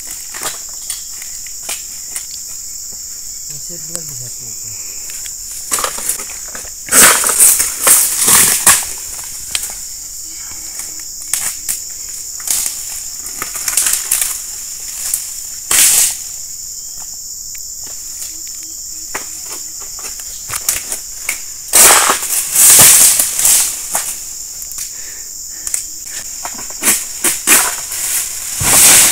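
Steady high chirring of insects, broken about five times by loud rustling crashes of a second or two, as palm fronds cut with a long-poled harvesting sickle (egrek) come down through the oil palm leaves.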